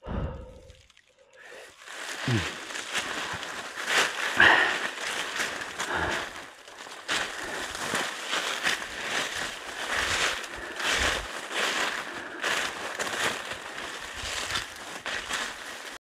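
Footsteps crunching and rustling through a thick layer of dry fallen leaves on a steep, slippery forest slope, one step after another at a walking pace.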